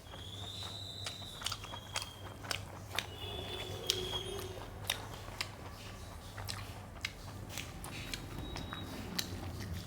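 Close-up chewing and mouth sounds of a person eating rice, daal and omelette, with many short wet clicks and smacks scattered through. A low steady hum runs underneath.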